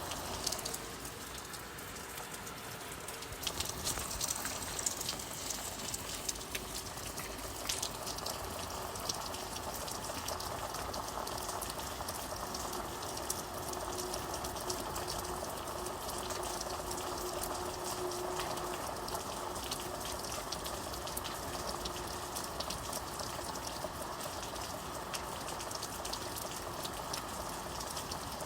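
Steady rain falling: a continuous hiss of drops with many separate ticks of drops striking a surface, and a faint low hum in the middle.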